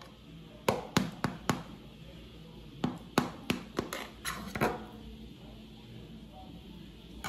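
Metal knife clinking and scraping against the sides of an aluminium baking pan while cutting a soft bread roll free: a run of sharp taps, about four in quick succession, then after a short pause about seven more.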